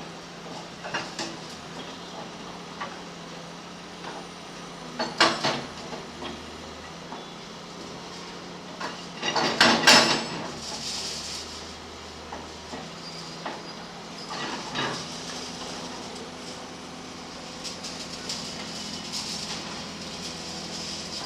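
Backhoe loader's engine running steadily, with two loud metallic clangs, about five seconds in and again around ten seconds in, and a few lighter knocks between them.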